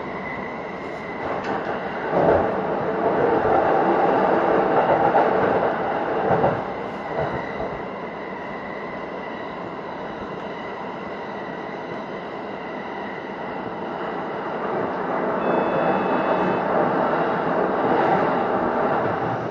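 Keihin-Tohoku Line electric commuter train running along the track, heard from on board: a steady rumble of wheels on rail that swells louder twice.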